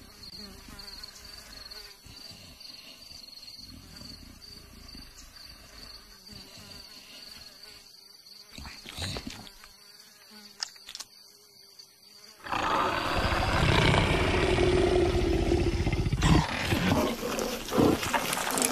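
Faint insect buzzing with a steady high insect tone. About twelve seconds in, a loud, rough growl from a cartoon leopard starts suddenly and lasts several seconds.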